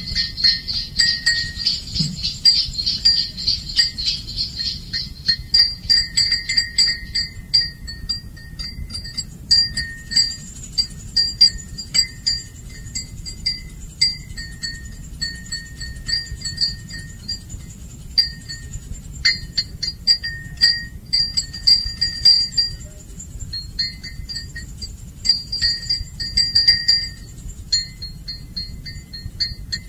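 Wind chimes tinkling in irregular clusters of short, high ringing notes over a low steady rumble.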